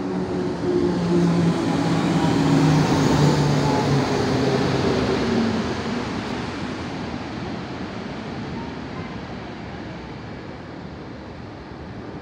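Electric locomotive hauling a passenger train passes close by. Its motor hum is loudest two to four seconds in and falls slightly in pitch as it goes past. The steady rolling noise of the coaches' wheels on the rails follows and slowly fades.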